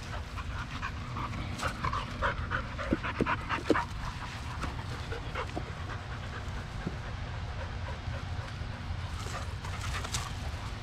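Dogs panting close by, quick short breaths most noticeable in the first few seconds, over a low steady rumble.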